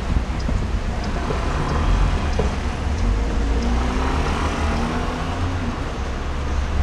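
Steady low rumble of distant road traffic, swelling a little in the middle as a vehicle passes.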